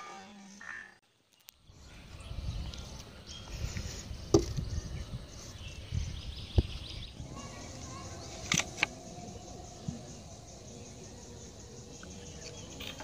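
A short tail of background music, then wind buffeting the microphone outdoors, with a few sharp clicks scattered through, the loudest about four and six seconds in.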